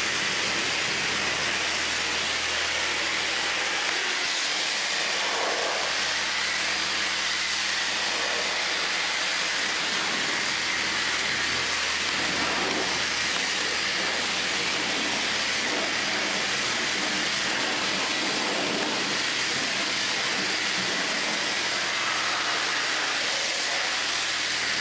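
High-pressure water spray hissing steadily.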